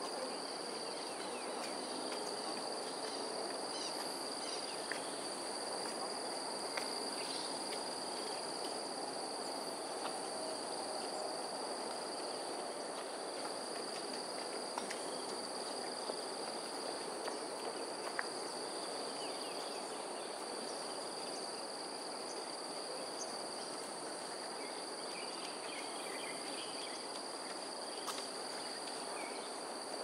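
Steady high-pitched drone of insects at two pitches over a constant background hum, with faint scattered bird chirps.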